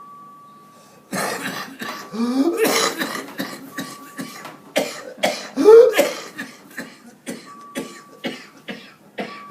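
A child with whooping cough (pertussis) in a coughing fit: runs of rapid short coughs, broken twice by a rising whooping intake of breath.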